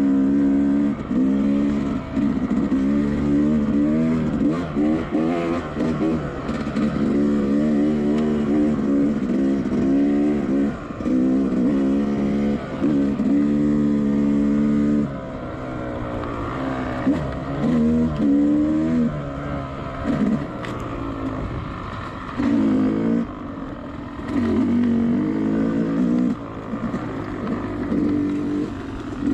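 Two-stroke dirt bike engine ridden off-road, the throttle repeatedly opened and closed so the pitch climbs and drops with each burst. The engine runs lower and quieter for a stretch past the middle, with only short bursts, then picks up again near the end.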